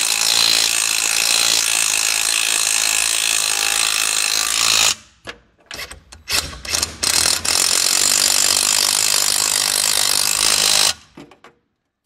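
Impact wrench driving the differential mounting bolt home through the subframe bushing into the diff cover: a long run of about five seconds, a few short blips, then a second run of about three and a half seconds that cuts off.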